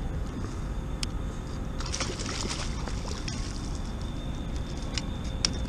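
Water splashing and sloshing as a hooked speckled trout is scooped up in a landing net beside a kayak, loudest about two seconds in, over a steady wind rumble on the microphone.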